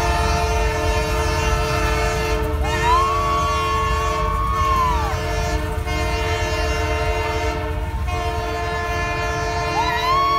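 Locomotive air horn sounding a long sustained chord over the low rumble of the train's cars rolling past. A higher note slides up about three seconds in, holds for a couple of seconds and slides back down, and another begins near the end.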